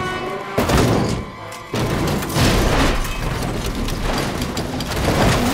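Dramatic film music with a loud crash: a sudden boom about half a second in, then more heavy impacts as a race car tumbles across the ground.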